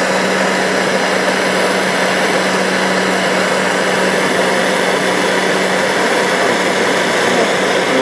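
Propane torch flame burning with a steady hiss as it plays on a microwave's plastic cooling fan. The microwave's fan motor runs underneath with a steady low hum.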